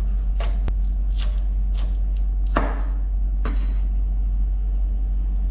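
Chef's knife slicing spring onions on a wooden cutting board: about five cuts, roughly one every three-quarters of a second, stopping a little past halfway, over a steady low hum.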